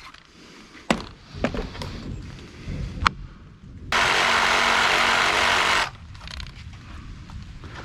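A few sharp knocks on wood, then a power saw runs for about two seconds, cutting through the notch in a 6x6 post, and stops.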